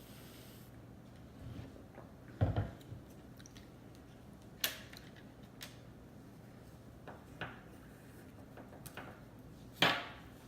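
Close-up chewing of sushi: wet mouth smacks and clicks at irregular intervals. The loudest come about two and a half seconds in and near the end.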